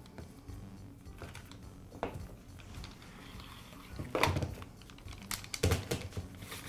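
Light clicks and knocks of a plastic recoil starter housing and its rope being handled, sparse at first and louder in clusters from about four seconds in.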